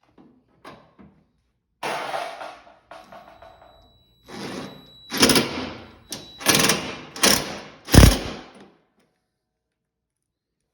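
Pop rivets being set with a hand rivet tool on the washing machine's metal panels: a run of short, harsh crunching bursts, one after another, the last one the loudest and deepest.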